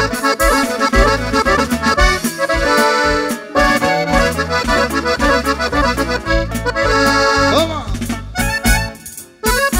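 Live norteño band in an instrumental break: an accordion plays fast lead runs over electric bass, drums and guitar. The music drops out briefly near the end, then comes back in.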